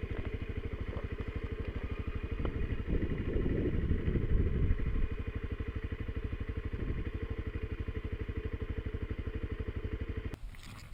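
Motorcycle engine idling with an even, fast pulsing beat, louder and rougher for a couple of seconds a few seconds in. The sound stops abruptly near the end.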